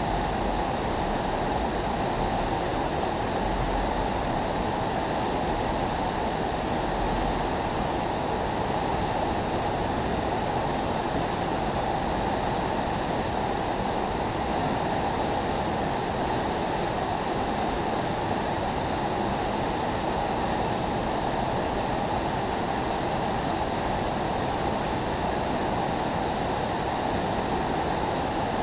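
Steady rush of river water pouring through a spillway, an even roar that stays at one level.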